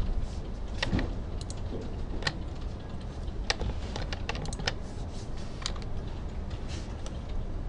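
Scattered, irregular clicks of a computer mouse and keyboard being worked at a desk, with a short quick run of clicks about halfway through, over a steady low hum.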